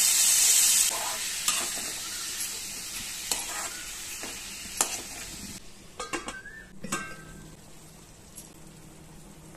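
Chopped tomatoes sizzling in hot oil in a pan, loudest in the first second and dying down over several seconds. A metal spoon stirs them, clicking and scraping against the pan.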